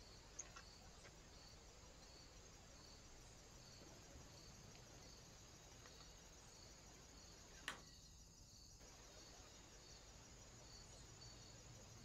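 Near silence: a faint steady hiss with a faint high pulsing about twice a second, and one sharp click about three-quarters of the way through.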